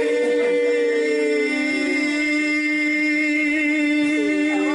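Voices singing one long held note in two-part harmony, with no instruments. The higher part stops about a second and a half in, and another voice comes back in near the end.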